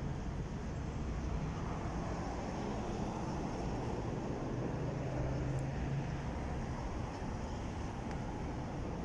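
Steady car engine and road noise of a car on the move, with a low hum that grows a little stronger about halfway through.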